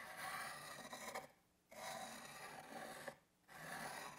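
Steel roughing gouge honed on a diamond sharpening stone: a faint gritty scraping in about three long side-to-side strokes, each over a second, with short pauses between.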